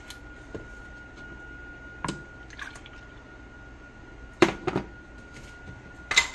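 Liquid egg whites poured from a glass measuring cup into a bowl of cracked eggs, a soft pouring and dripping of liquid. A few sharp knocks come from the glass cup being handled and set down on the glass stovetop, the loudest about four and a half seconds in and another just after six seconds.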